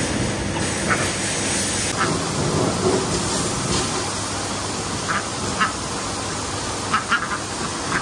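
A few short, scattered calls from farm poultry, with several in a quick cluster near the end, over a steady rushing background noise.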